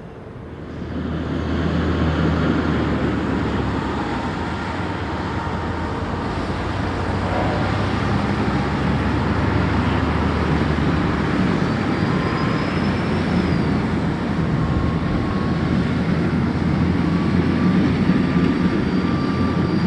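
Steady low engine rumble with a broad noisy wash over it, swelling up about a second in and holding, with a few faint thin whistling tones above it.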